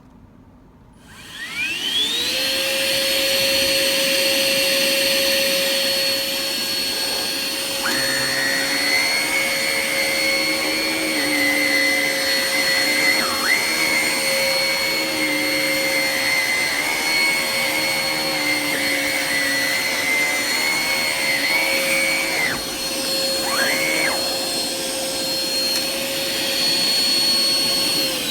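Hoover ONEPWR Evolve Pet Elite cordless stick vacuum switched on: its motor spins up with a rising whine about a second in and then runs steadily. About a third of the way in a second, wavering higher tone joins and briefly dips twice, and near the end the motor winds down with a falling whine.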